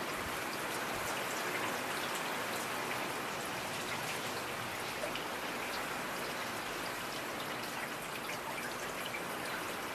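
Steady rain falling, an even hiss with scattered faint drops ticking on a surface.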